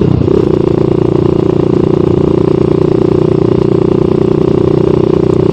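Motorcycle engine idling steadily through an SC Project aftermarket muffler with its silencer insert fitted, still running loud.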